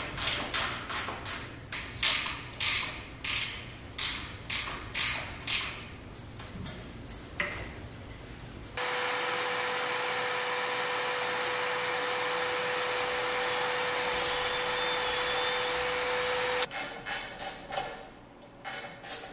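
Sharp clicks, about one and a half a second, then a cordless drill running steadily for about eight seconds, boring into a pine stair tread, with a steady motor whine; it starts and stops abruptly. Sharp clicks follow again near the end.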